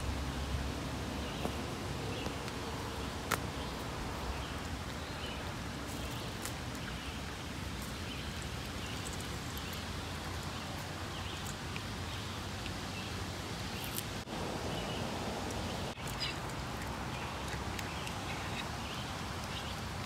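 Outdoor garden ambience: a steady low background noise with faint, scattered bird chirps and one sharp click about three seconds in.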